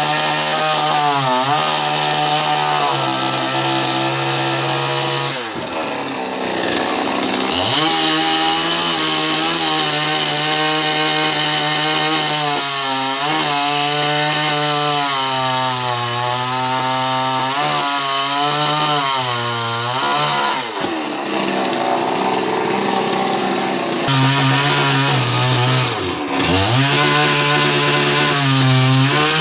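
Chainsaw running under load as it cuts into a coconut palm trunk, its engine pitch wavering up and down as the chain bites and frees. The pitch falls away sharply and climbs back about six seconds in, and again near 21 and 26 seconds.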